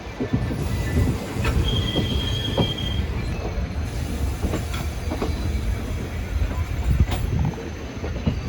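Ernakulam–Okha Express passenger train running on the rails: a steady heavy rumble with scattered clacks, and a brief high-pitched wheel squeal a couple of seconds in.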